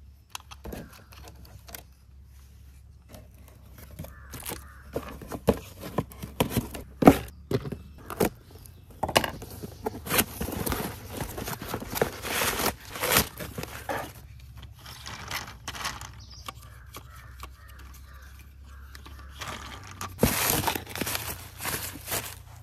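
Crumpled paper packing rustling and crinkling in a cardboard box as hands dig through it, with irregular scrapes and light knocks of cardboard.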